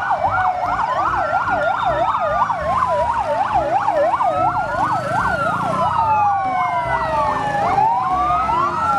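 Several emergency-vehicle sirens sounding at once: a fast yelp rising and falling about three times a second over slower wails that sweep up and down.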